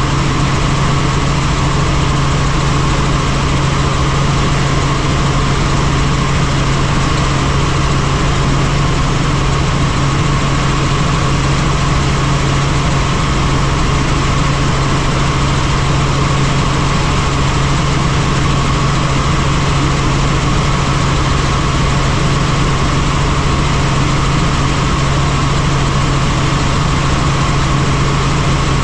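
Helicopter running steadily: a loud, constant low hum and a higher steady tone over a dense rush of noise.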